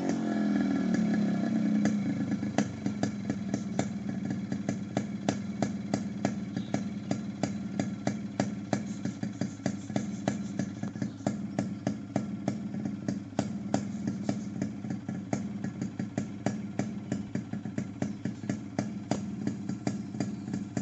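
Yamaha RX100's two-stroke single-cylinder engine idling through a modified exhaust, with sharp crackling pops several times a second over a steady low hum. The revs drop back to idle over the first couple of seconds.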